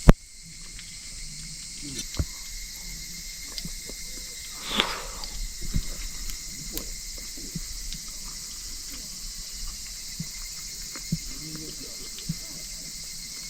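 Steady, high insect chirring, with a sharp click right at the start, a few soft knocks and a short louder rustle about five seconds in.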